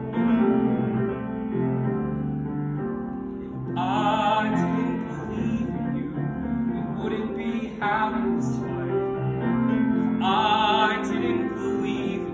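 A male singer sings long notes with vibrato over piano accompaniment, the sung phrases swelling about four seconds in and again near eight and ten seconds.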